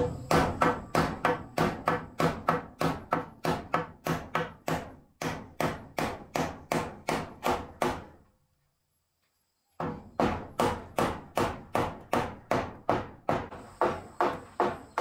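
Claw hammer driving a nail into a wooden block, a rapid, even run of strikes about three a second. The strikes stop for over a second about halfway through, then start again.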